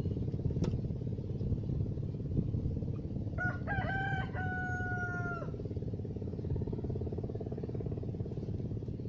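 A rooster crows once, starting about three seconds in: a broken start, then a long held note of about two seconds that drops at the end. A steady low engine-like rumble runs underneath.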